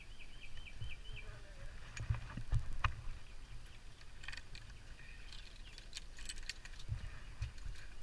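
Metal climbing gear (rings and carabiner) clinking and jingling in scattered light clicks, over a low rumble of handling on the microphone. A bird gives a quick run of about six short chirps right at the start.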